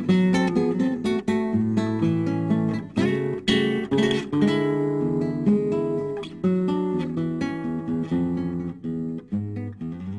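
Acoustic guitar music: strummed chords and plucked notes with a low bass line, the instrumental close of a sung folk song.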